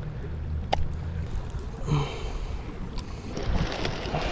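Wind and water noise with a low rumble in the first second, broken by two sharp clicks, one near the start and one about three seconds in.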